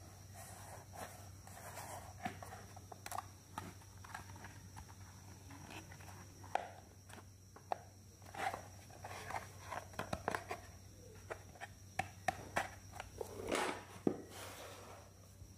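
Hard plastic toy wardrobe case being handled and opened: irregular clicks and taps of its plastic doors and latches, with a brief rustling swell near the end.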